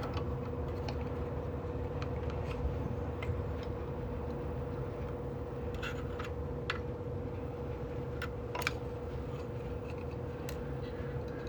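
Scattered faint clicks and ticks of a hex wrench working the screws of a 3D printer's shipping bracket, over a steady hum holding one tone.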